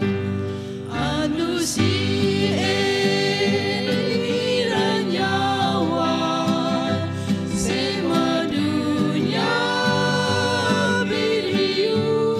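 A small mixed group of men and women singing a gospel song together in harmony, accompanied by an acoustic guitar.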